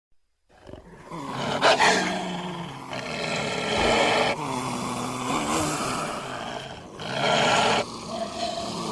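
Made-up animal sound effect: wolf and leopard recordings mixed together, growling and roaring, with several louder swells.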